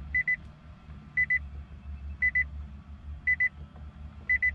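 Electronic double beep, high-pitched, repeating five times about a second apart, over a low steady hum.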